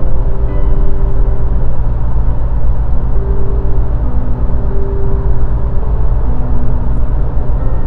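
Car driving at highway speed, about 120 km/h: a steady low rumble of road and wind noise.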